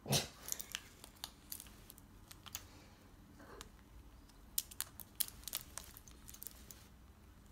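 Car keys clinking in short, scattered clicks as a parrot grips and tugs at them with its beak.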